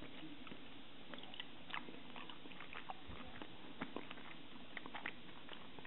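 Close-up mouth sounds of chewing a bite of ohagi, sticky rice coated in sweet red bean paste: soft, wet smacks and clicks at irregular intervals over a steady background hiss.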